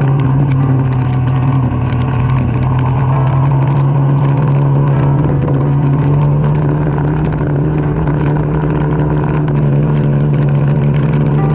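Kawasaki Dominar 400's single-cylinder engine running at a steady, even pitch while cruising at a constant speed.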